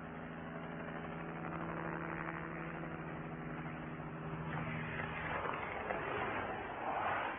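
RTV 31 hovertrain running along its test track: a steady, even hum with a rushing noise that swells about five seconds in as it passes close by.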